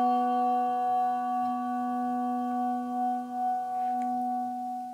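A brass handbell, struck once just before, ringing on in a single long tone that slowly fades near the end: a memorial toll after the name of a dead church member is read.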